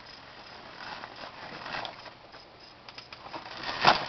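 Electric dirt bike ridden over a dirt track: quiet, with no engine note, only faint rattles and small clicks, getting louder near the end with a sharp knock as the front wheel comes up into a wheelie.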